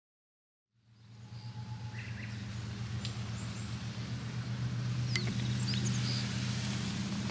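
Silence for about a second, then outdoor ambience fades in: a steady low hum under a faint even hiss, with a few faint bird chirps scattered through it.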